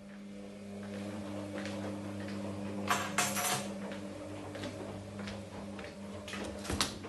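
A steady low electrical hum from a household appliance. A short loud rattle comes about three seconds in, and a door handle clicks near the end as a door is opened.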